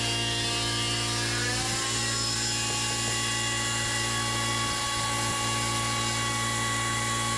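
A 12-inch Delta thickness planer running while planing spruce boards: a loud, steady machine whine with several fixed pitches, which rises slightly in pitch about a second or two in.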